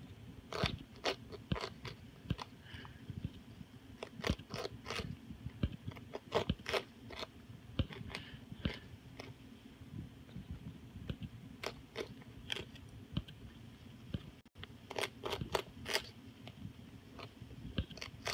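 Moluccan cockatoo crunching and shredding butternut squash with its beak: irregular crisp crunches and clicks, several a second.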